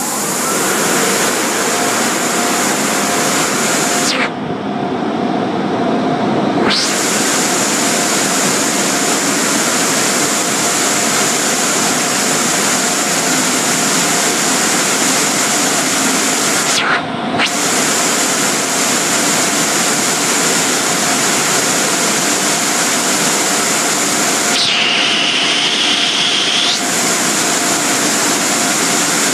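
Tunnel car wash dryer blowers running, a loud, steady rush of air with a faint high whine.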